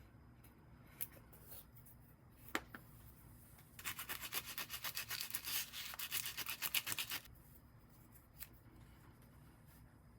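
Brisk back-and-forth rubbing strokes on a hard surface, quick and even, lasting a little over three seconds. A sharp tap comes before them and a few light clicks fall around them.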